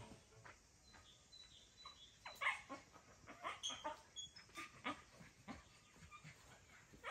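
A dog whimpering with short yelps, quiet and irregular, with a few brief high chirps.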